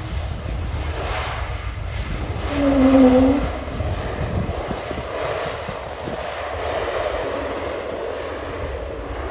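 Swiss Airbus A220-300's Pratt & Whitney PW1500G geared turbofans running as the jet rolls along the runway. About two and a half seconds in, a loud, short humming tone dips slightly in pitch and stands out over the steady engine noise: the odd engine noise the A220 is known for.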